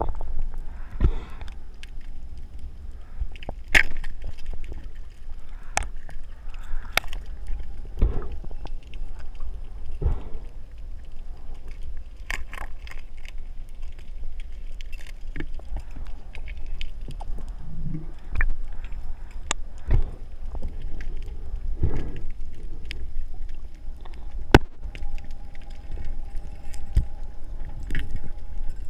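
Muffled underwater sound through a waterproof camera housing: a steady low rumble with scattered sharp clicks and knocks every second or two.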